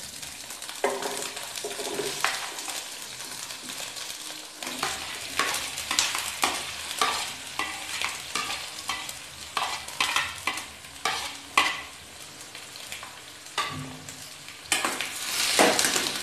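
Chopped onion frying in hot oil in a small stainless-steel kadhai: a steady sizzle with repeated scrapes and clinks of a steel spoon as the onion is spooned in and stirred. The sizzle and scraping grow louder near the end.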